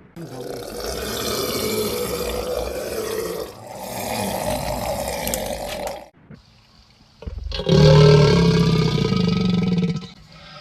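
American alligator roar sound effect: three long, rough, rumbling growls in a row with short gaps between them, the last one the loudest and deepest.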